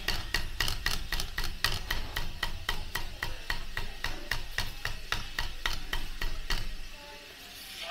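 Cleaver chopping cooked chicken on a thick round wooden chopping block: a quick, even run of about four chops a second that stops near the end.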